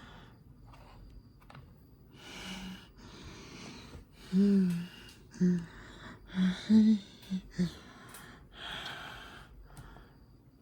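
A person's loud breathy gasps and exhalations, about five of them, with short low vocal grunts between about four and eight seconds in.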